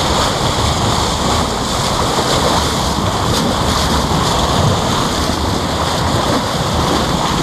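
Steady loud rush of water along the hull of a moving boat, with wind buffeting the microphone held close to the water.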